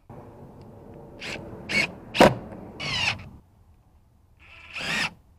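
A series of short scrapes and knocks, about five in five seconds, with a longer squeaky rub about three seconds in, as a plastic-covered storm panel is handled and fixed in place over a window frame.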